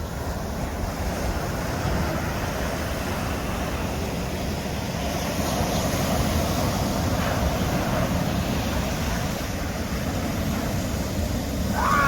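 Ocean surf breaking and washing up the beach, a steady rush that swells and eases, with wind buffeting the microphone.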